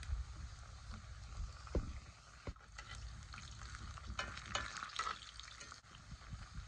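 Oil sizzling in a cast-iron skillet as slices deep-fry, with a metal spoon clicking and scraping against the pan several times, most often about four to five seconds in.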